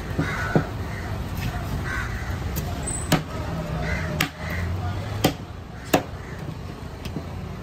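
Heavy curved fish knife chopping through yellowfin tuna onto a thick wooden cutting board: a few sharp knocks at irregular intervals, the loudest two close together near the end.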